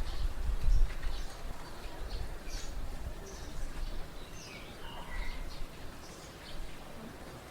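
Morning birdsong: scattered short chirps and calls from several small birds, over a low rumble of background noise that is strongest in the first second.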